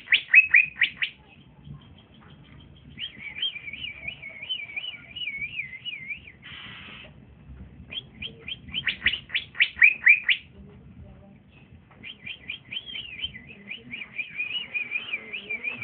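A young male cucak ijo (leafbird) singing: bursts of fast, loud down-slurred chirps alternating with long warbling trills, with a short harsh rasp about seven seconds in.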